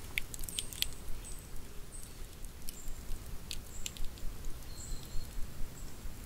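Wood campfire crackling, with irregular sharp snaps and pops over a low steady rumble, and several brief high-pitched whistles.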